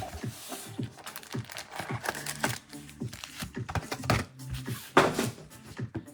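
Trading card box and pack wrappers being torn open, the plastic crinkling in many short irregular rustles, with quiet background music underneath.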